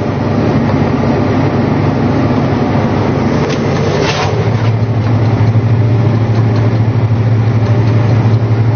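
John Deere tractor engine running steadily under load while pulling a peanut digger through the field, its low hum growing stronger about halfway through.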